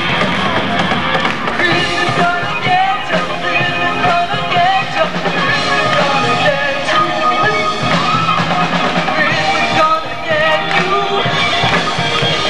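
Live pop-rock band playing a song, with drums, keyboards and electric guitar, while a lead vocalist sings into a microphone.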